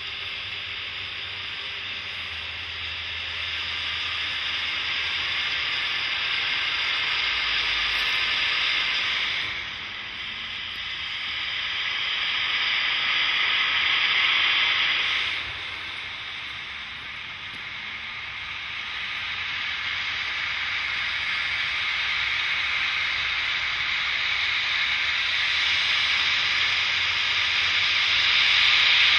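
Canadian Pacific 2816 steam locomotive venting steam at track level in a loud, steady hiss. The hiss swells and drops off sharply twice, about a third of the way and halfway through, then builds up again.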